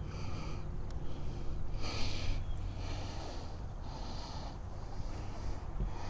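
A person breathing hard through the nose in short puffs, about one a second, over a low steady hum.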